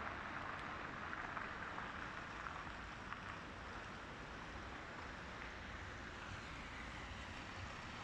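Steady hiss of city street ambience on wet streets, even throughout, with a few faint ticks.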